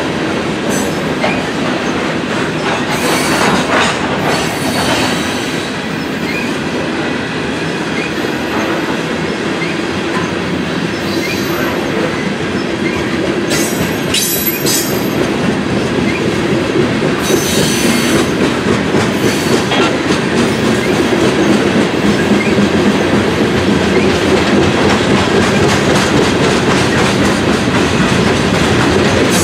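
Covered hopper cars of a freight train rolling steadily past, their wheels clacking over the rail joints, with a few brief high screeches from the wheels.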